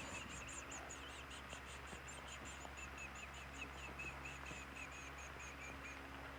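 Faint, rapid high chirping, about five or six short chirps a second, going on steadily and stopping shortly before the end.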